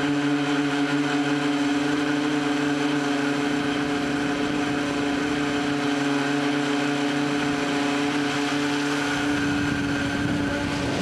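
Tricopter's electric motors and propellers whining steadily in flight, a held tone with many overtones; near the end the pitch shifts as the craft swings around.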